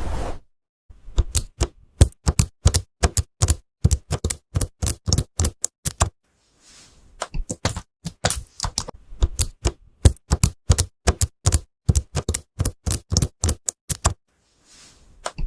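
Typing on a transparent keyboard: a long run of crisp key clicks, about three or four a second, stopping twice briefly with a soft hiss in each pause.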